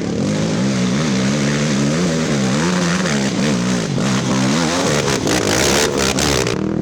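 Racing ATV engines revving up and down as the quads work the throttle around the course. About five seconds in a louder, harsher pass comes through with sharp crackles.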